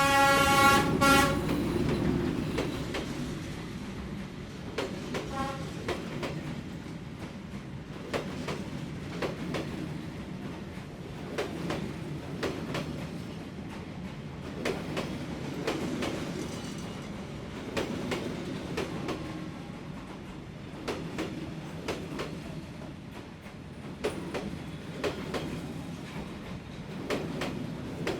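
Train passing: its horn sounds at the start for about a second, a fainter short toot follows about five seconds in, then the wheels click over the rail joints in an uneven rhythm under a steady low rumble.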